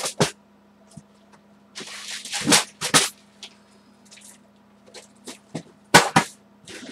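Rummaging through a storage bin of craft supplies: irregular bursts of rustling and clattering with sharp clicks, loudest about two and a half seconds in and again about six seconds in, over a faint steady hum.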